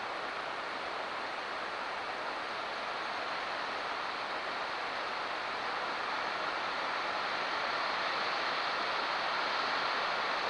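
Steady, even hiss from a trail camera's microphone, with no distinct events, slowly getting a little louder.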